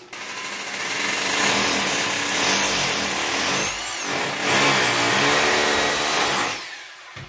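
Rotary hammer drilling into a tiled wall, running loud for about six and a half seconds with a high motor whine, easing off briefly about four seconds in, then stopping.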